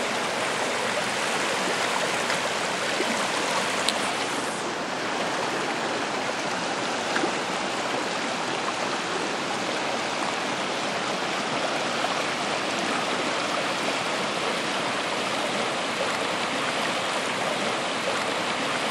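Steady rush of fast river current running over a rocky riffle, with a slight change in its tone about four and a half seconds in.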